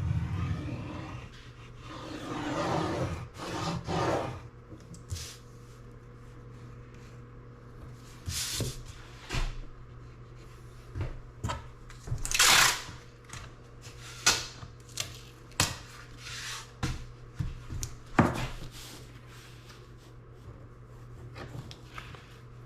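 Tape being laid and rubbed down on a laminate countertop: irregular rubbing and scraping with a dozen or so short, sharp rasping strokes, the loudest about halfway through and near the end.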